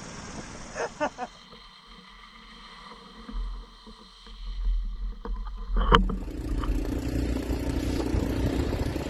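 Small motorbike engine running steadily through the second half. Before it come a few short knocks about a second in and a low rumble, and a sharp crack about six seconds in.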